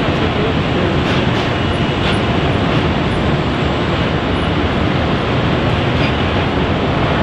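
Jet airliner engines running, a loud, steady roar.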